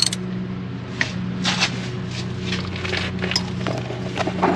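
Socket wrench working a rusty, penetrant-soaked brake caliper bolt loose, giving scattered metallic clicks and ticks. A steady low hum runs underneath.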